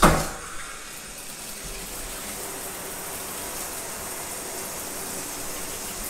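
Water spraying steadily from a low-flow Moen Velocity rain shower head, after a brief louder gush at the very start as the flow comes on.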